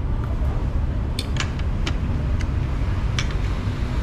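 Metal cutlery clinking against a plate about five times, short sharp clicks, over a steady low rumble of background noise.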